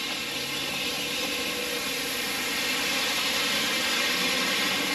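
Gravel spreader truck running while its rear spinner throws gravel across the ground: the engine hums under a steady rushing noise. The noise grows slightly louder as the truck comes closer.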